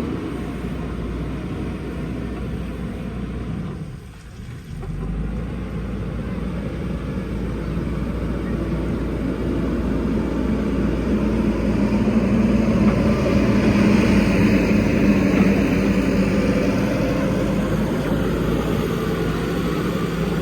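Diesel engine of a JCB backhoe loader running steadily, dropping away briefly about four seconds in, then growing louder from about ten seconds on.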